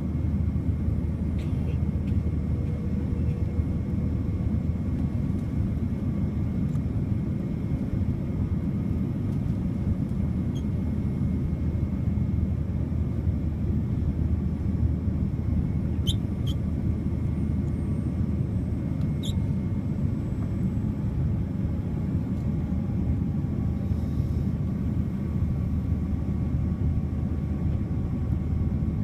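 Steady low rumble of a Boeing 787-9's cabin noise in flight, heard from a window seat, with faint steady tones over it. Two light clicks come about two-thirds of the way through.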